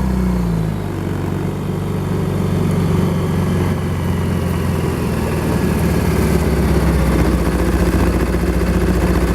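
Suzuki Burgman 650 parallel-twin engine coming down from about 4,000 rpm about half a second in, then running at lower revs with an uneven skipping note that grows a little louder in the second half. The owner takes the skip for a fouled spark plug, with the engine missing on one cylinder.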